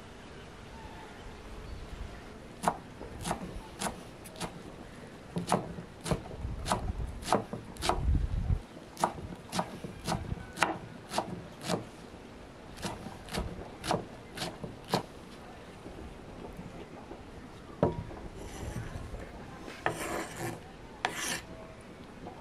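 Large kitchen knife chopping fresh green herbs on a thick wooden chopping board: a run of sharp knocks, about two a second, which stops about two-thirds of the way through. Near the end, a knock and scraping as the chopped herbs are pushed off the board.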